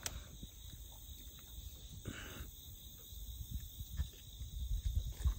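Steady high drone of insects, with soft rustling and a few small clicks of hands and pliers working a hook out of a crappie's mouth; the sharpest click comes about four seconds in.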